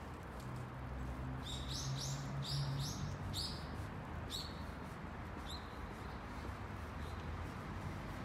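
A small bird chirping: a quick run of about eight sharp, high calls, each dropping in pitch, over a few seconds before it trails off. A low steady hum runs underneath.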